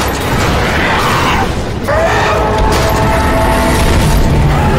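Action-film soundtrack: dramatic music over low rumbling and booms, as a propeller plane's engines burn. About two seconds in, a winged creature gives a rising screech.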